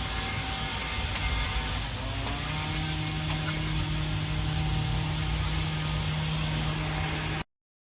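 Aceup Energy 1,200-watt portable gas generator running steadily; a little over two seconds in, its hum settles onto one steady low pitch. The sound cuts off suddenly near the end.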